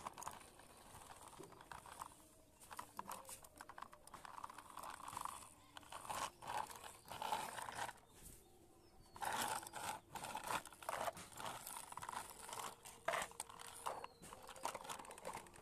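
Plastic toy vehicles being pushed and scraped across concrete and clattering against one another, in irregular bursts of scraping with sharp clicks and a brief pause midway.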